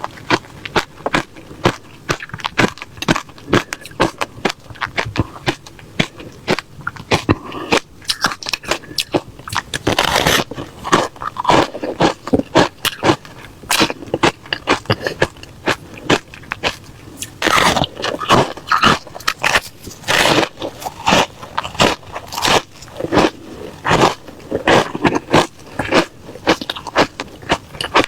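A person biting and chewing refrozen crushed ice close to the microphone: crisp, crunchy cracks come several times a second without a break, with louder bites every few seconds.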